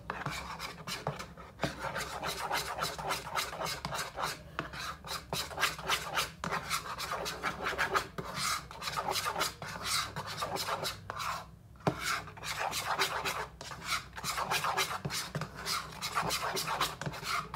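Metal spoon scraping and stirring around a plastic bowl of glue-and-activator slime mixture, in quick repeated strokes with a few brief pauses.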